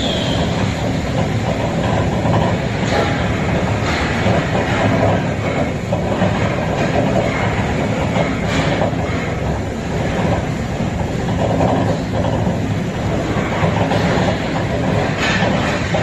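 Compressor recycling machine cutting open a hermetic fridge compressor: the steel shell spins on a turntable against a cutting tool, a loud steady mechanical rattle with a few sharper clicks, more of them near the end.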